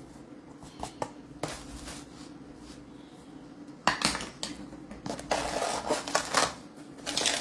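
Rustling, scraping and clatter of a sugar container being handled on a kitchen counter: light clicks at first, then louder crinkling and scraping bursts from about four seconds in. A faint steady hum lies underneath.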